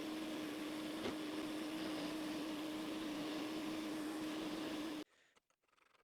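A workshop machine motor running steadily with a constant hum while a bit is taken off the top of a small brass part. It cuts off abruptly about five seconds in.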